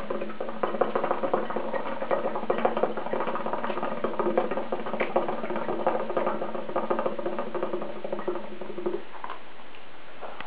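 Hookah water bubbling in its base during one long, steady pull on the hose, a rapid gurgle that stops about nine seconds in.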